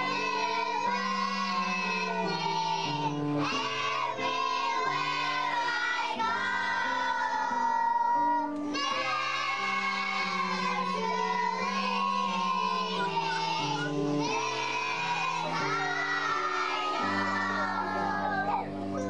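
A group of young children singing a song together, with instrumental accompaniment underneath.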